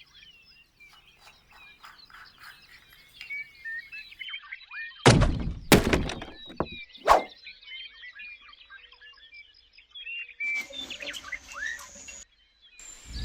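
Small birds chirping busily in quick, short, often falling calls. Three sharp knocks come at about five, six and seven seconds in, the last with a brief ring.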